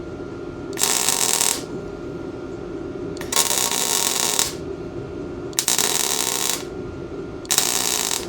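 MIG welder arc laying four short stitch welds, each a crackling burst of about a second with brief pauses between, on thin tubing that he is welding in short stitches so as not to burn through it.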